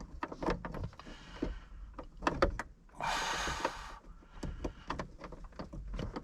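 Plastic trim pieces of a truck's overhead console being handled and fitted, with a string of small clicks and knocks and a short rustling scrape about three seconds in.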